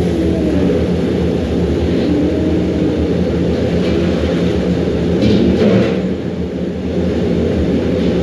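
Steady low rumble with a hum from a commercial kitchen range heating large stockpots, the nearest at a rolling boil. A brief louder sound breaks in about five seconds in.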